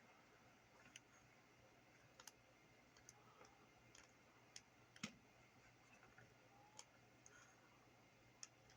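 Faint, scattered small clicks, about eight of them at uneven intervals and the loudest about five seconds in, as a BNC jack's mounting nut and the jack are turned by hand to thread the nut on.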